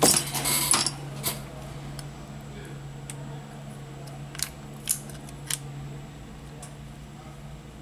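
Small metal phone parts and tools handled on a silicone repair mat: a burst of clinking and scraping in the first second, then a few separate light clicks, over a steady low hum.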